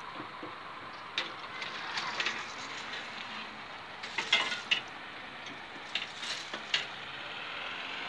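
Level crossing barrier booms rising, with scattered mechanical clicks and knocks, the densest cluster about four seconds in.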